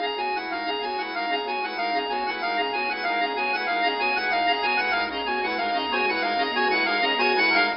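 Duo of chromatic button accordions playing fast running note figures over sustained chords. The music cuts off sharply near the end, leaving a brief ring of reverberation in the hall.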